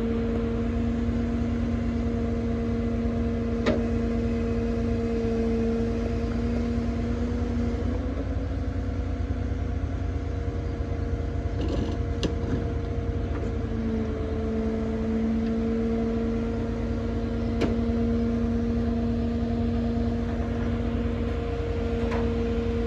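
A crane truck's diesel engine runs at a steady speed, giving a constant two-note hum over a low rumble, with a few faint clicks.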